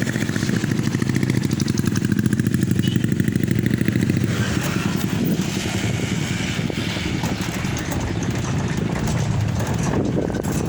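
Motorcycle engine running steadily while riding along, with a quick, even low pulse throughout.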